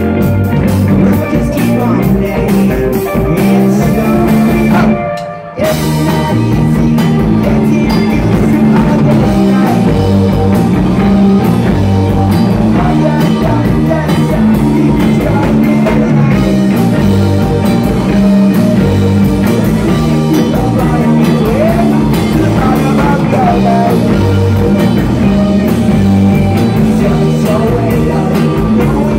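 Live rock band playing loud: distorted electric guitars, drum kit and a singer's voice. The band stops for about half a second roughly five seconds in, then comes straight back in.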